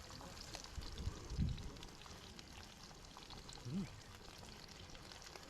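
Pork belly sizzling on a grill pan, a steady faint crackle. A short murmur of a voice comes twice.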